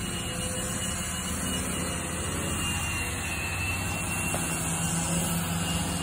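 Steady low machinery hum from a running engine or motor, a little louder toward the end.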